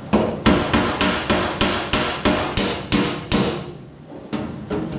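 Hammer striking the cracked sheet-steel cab panel of a 1931 Ford Model A pickup in quick, even blows, about three a second, to flatten the crack back into place. The blows stop about three and a half seconds in, and lighter taps start again near the end.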